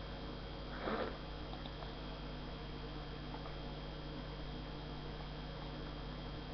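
A person sniffing once through the nose about a second in, over a steady faint electrical hum.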